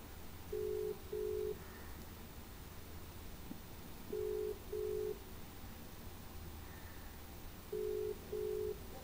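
Telephone ringback tone: three pairs of short, steady beeps at one pitch, each pair repeating about every three and a half seconds, the sign of an outgoing call ringing at the other end and not yet answered.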